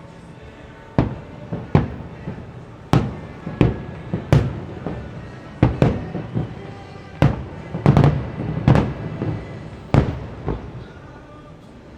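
Fireworks shells bursting in an irregular string of about a dozen booms across the lake, each trailing off in a short rolling echo. The booms stop about ten and a half seconds in.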